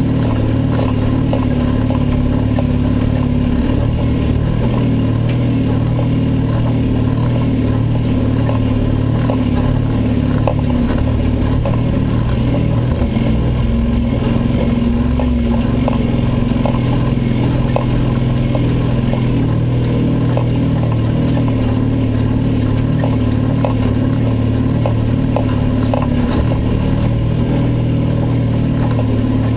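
Engine of a Toyota off-road rally car running hard, heard from inside the cabin, its pitch rising and falling a little with the throttle. Frequent short rattles and knocks from the cabin run through it.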